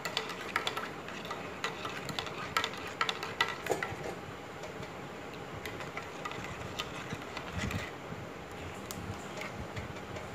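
Steel spoon stirring liquid in a stainless steel vessel, clinking irregularly against the sides as the sugar is mixed in, with the clinks coming more often in the first few seconds.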